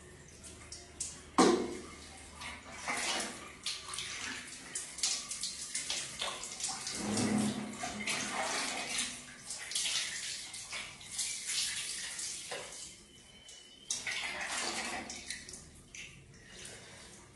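Water scooped from a plastic bucket with a plastic dipper and poured out, splashing onto a tiled floor in uneven bursts, with a sharp knock about a second and a half in.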